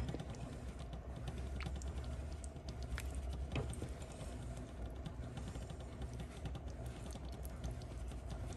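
Wooden spoon stirring thick chili in a metal pot: scattered small clicks and scrapes of the spoon against the pot and through the sauce, over a low steady hum.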